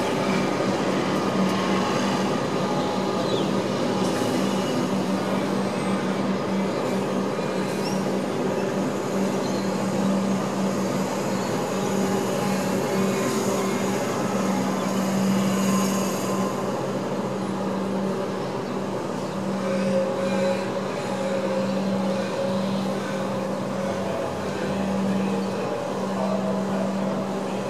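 Melbourne Metro electric suburban train standing at a station platform: a steady low electrical hum with a slightly pulsing tone, over general station noise.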